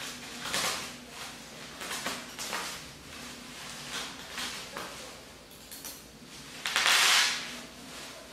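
Plastic bubble wrap crinkling and rustling as it is handled and pulled off, in a run of short bursts with the loudest, longest crinkle about seven seconds in.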